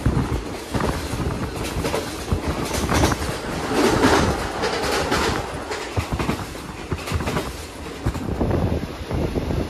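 Passenger train running along the track, heard from on board a carriage: irregular clattering and knocking of wheels over the rails over a steady rushing rumble.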